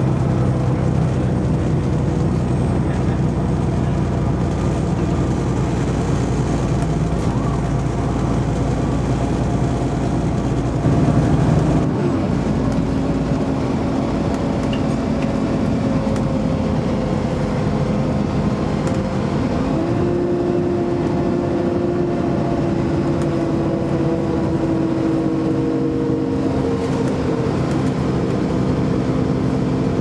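Interior sound of a 2009 Alexander Dennis Enviro 400 (Trident 2) double-decker bus under way: the engine and Voith automatic gearbox running steadily with a whine, which shifts in pitch about twelve seconds in and rises again near twenty seconds.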